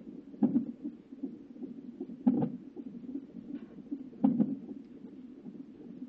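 Fetal Doppler heart monitor through its speaker: the unborn baby's heartbeat pulsing quickly, broken by three loud thuds about two seconds apart. The thuds are the baby's hiccups, picked up by the probe at 35 weeks of pregnancy.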